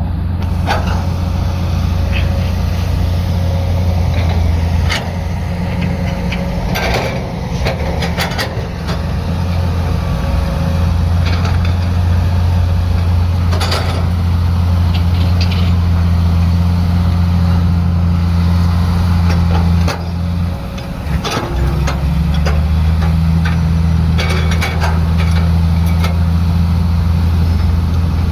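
Heavy construction machine's diesel engine running steadily, with scattered sharp knocks. About two-thirds of the way through, the engine note dips briefly, then settles at a slightly different pitch.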